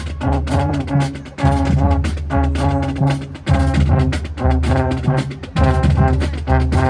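High school marching band playing: brass horns over a driving drum-line beat with sharp, regular percussion hits.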